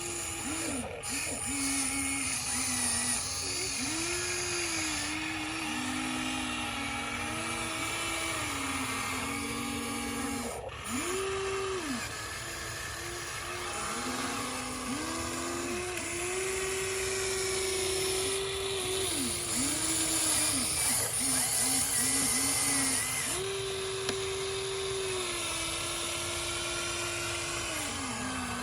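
Electric motors of a Huina radio-controlled toy excavator whining, the pitch stepping up and down and the whine starting and stopping every few seconds as its functions are worked.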